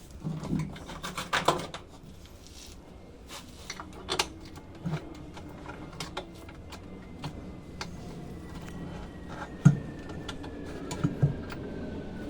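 Scattered clicks, taps and knocks of tools and metal parts being handled while a top-load washing machine's motor is refitted, with a sharper knock about ten seconds in. A faint high tone slowly falls in pitch through the second half.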